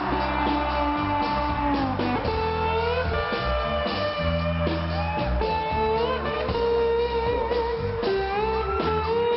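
Rock music: an electric guitar lead playing held notes that slide and bend in pitch, over bass and drums.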